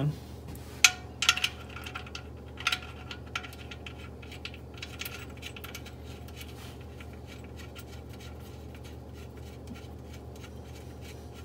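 Oil drain plug with a new crush washer being threaded by hand into a Mercedes C300 W205's oil pan: small metallic clicks and scrapes, a few sharper ones in the first three or four seconds, then faint ticking over a steady low hum.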